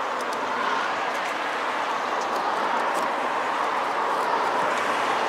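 Steady noise of traffic passing on the highway, swelling slightly in the second half, with a few faint clicks.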